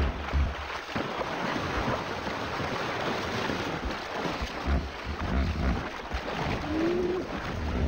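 Hippopotamuses fighting in shallow water: heavy splashing and churning water, with low rumbling surges as the bulls lunge at each other.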